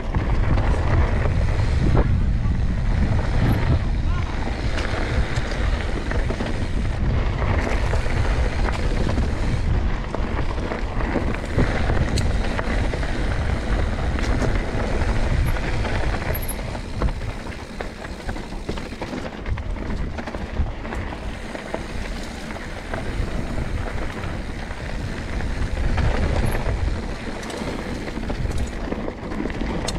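Mountain bike riding a rough dirt trail: wind buffeting the microphone, a heavy low rumble of tyres on dirt and scattered rattles and knocks from the bike, easing off somewhat about two-thirds of the way through.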